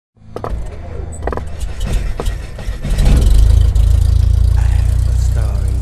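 Sound effects for an animated logo intro: a few sharp hits, then a deep, steady rumble from about three seconds in.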